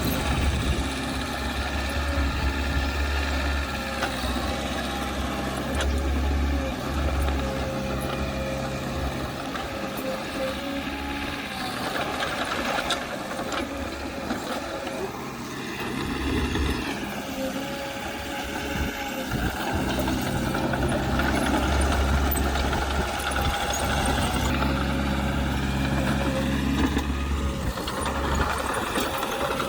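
Diesel engines of a bulldozer and dump truck working earth, a deep engine rumble that swells and eases several times as the load changes.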